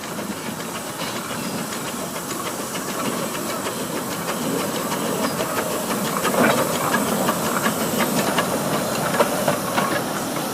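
Narrow-gauge steam locomotive hissing steam, with many short clicks and knocks over the hiss, which grows slightly louder.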